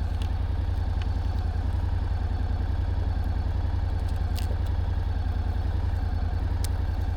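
Motorcycle engine idling steadily, a deep, evenly pulsing rumble that holds without revving.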